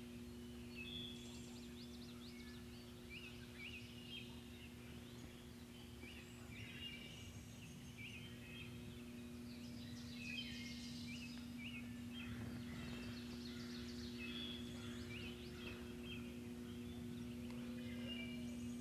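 Songbirds chirping and singing, one repeating a short note about twice a second, over a steady low hum.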